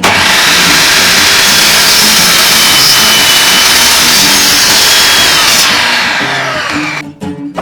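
A woodworking power tool running loudly at full speed, switched on abruptly, then winding down with a falling pitch near the end.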